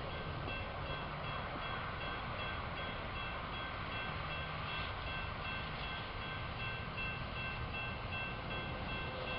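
A train running past a grade crossing with a steady rumble, while the crossing signal's bell rings in rapid, evenly repeated strokes.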